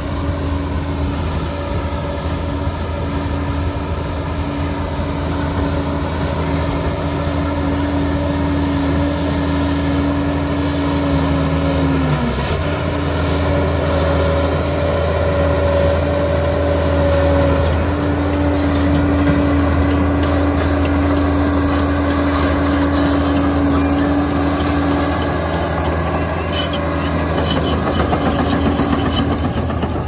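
Liebherr PR 746 crawler dozer's diesel engine running steadily under working load, with a steady whine over the engine's hum; about twelve seconds in the whine dips in pitch and comes back up as the engine is loaded down and recovers.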